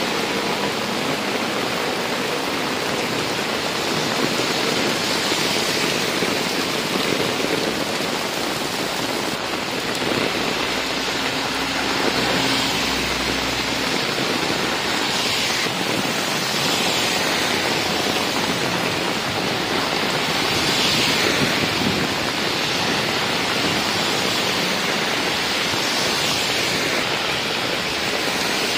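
Heavy rain pouring steadily onto a road and pavement, with vehicles swishing through the standing water a few times.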